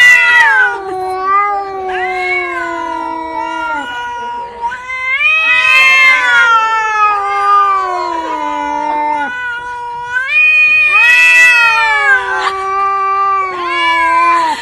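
A cat yowling in three long, drawn-out calls, each starting high and sliding down in pitch.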